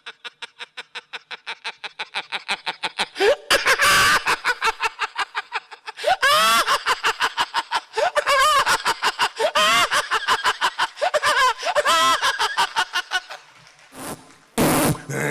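A man laughing hard into a stage microphone: a long string of rapid ha-ha pulses, about ten a second, that swells into louder, higher rising-and-falling whoops in the middle, with a brief break near the end.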